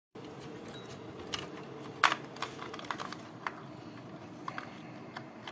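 Irregular small plastic clicks and taps of hands working cables and connectors inside a desktop computer case, the sharpest click about two seconds in, over a steady low hum.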